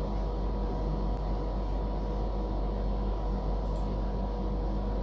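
Steady low hum with a faint hiss of background noise, unchanging throughout; no distinct handling sounds.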